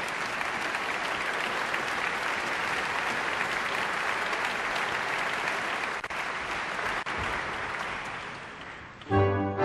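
Concert audience applauding steadily, dying away near the end; in the last half second the symphony orchestra comes in with music.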